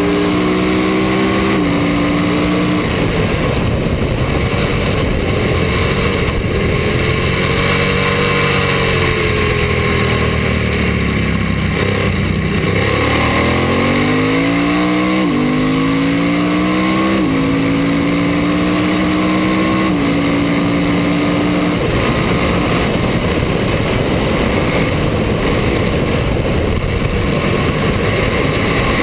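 Ducati race motorcycle engine heard from on board at racing speed, under heavy wind rush. It upshifts twice early on, its pitch sweeps down under braking and downshifts near the middle, then it climbs again through two quick upshifts. In the last third the engine note fades under a steady wind roar.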